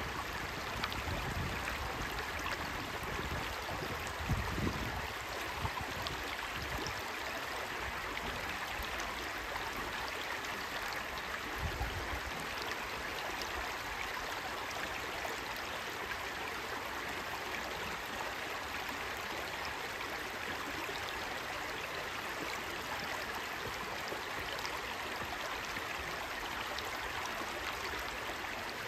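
Shallow rocky stream babbling over stones and small riffles: a steady, even rush of running water. A couple of brief low rumbles come about four and twelve seconds in.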